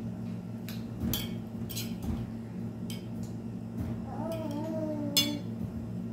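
Eating at a table: scattered sharp clicks and taps of a spoon against plates and of chewing, over a steady low hum. A short hummed voice sound comes about four seconds in.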